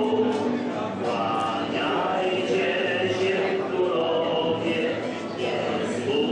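A group of voices singing together in long, held notes, over a murmur of conversation.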